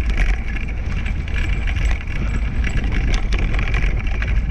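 Wheels of a two-dog scooter rolling over a leafy woodland trail, with wind rumbling steadily on the microphone and many scattered clicks and rattles from the rig.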